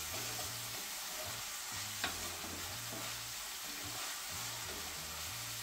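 Tomatoes and garlic sizzling in butter in a skillet on a gas burner while a wooden spatula stirs them. The sizzle is a steady hiss, with one faint click about two seconds in.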